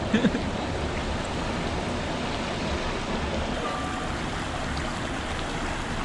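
Steady rush of water flowing over rocks in a waterfall-fed stream.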